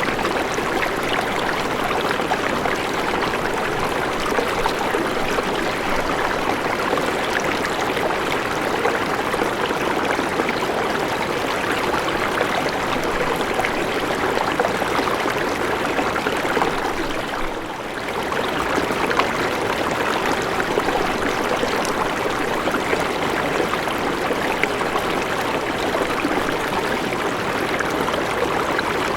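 River water flowing steadily, with a brief dip in level about two-thirds of the way through.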